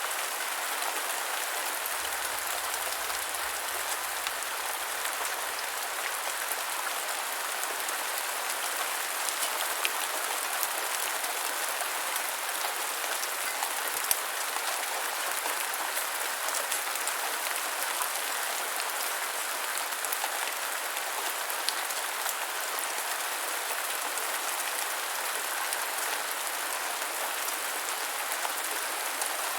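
Light rain falling, a steady even hiss with scattered individual drop taps.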